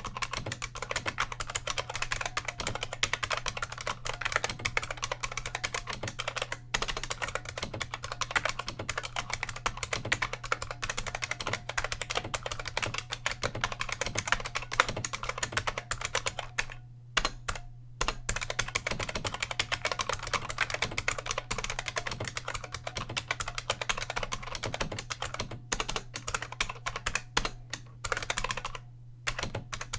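Fast, continuous typing on a bolt-modded IBM Model M keyboard: a dense run of buckling-spring key clicks, pausing briefly about halfway through and again near the end. A faint steady hum runs underneath.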